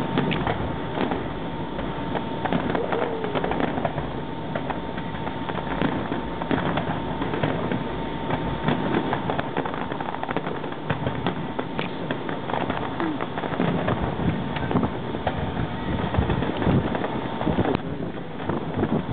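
Distant fireworks display: a dense, continuing run of pops, bangs and crackle over a steady background noise, with a faint steady tone underneath.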